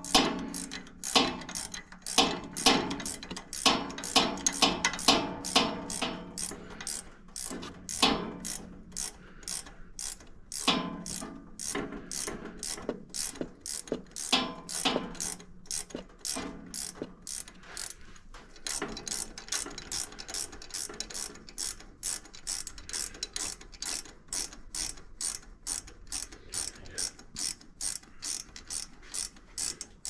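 Hand ratchet wrench clicking as a rocker arm stud is unscrewed from the cylinder head of a Briggs & Stratton V-twin engine. The clicks come in a long even run, uneven and louder at first, then settling to about two or three a second.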